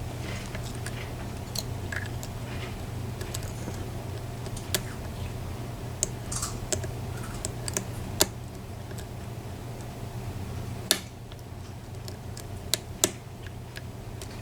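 Scattered small metallic clicks and ticks of a lock pick and tension wrench working the pins inside a PACLOCK 90A padlock, the sharpest click about 11 seconds in, over a steady low hum.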